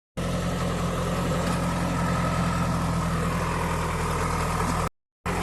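JCB backhoe loader's diesel engine running steadily with an even hum. It cuts out briefly near the end and then carries on.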